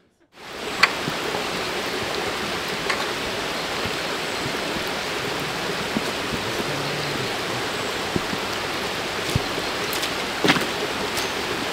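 Steady rain falling: an even hiss with scattered sharp drips.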